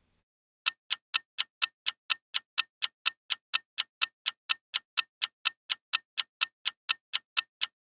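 Countdown timer sound effect: even clock-like ticking, about four ticks a second, starting just under a second in.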